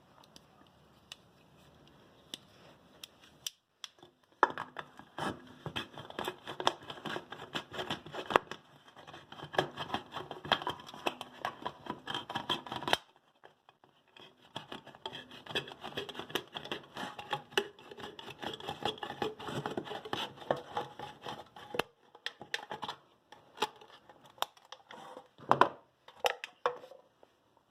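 Rapid, dense scratching and crackling from handwork with a tool, in two long stretches of about eight seconds each, followed by a few scattered knocks near the end.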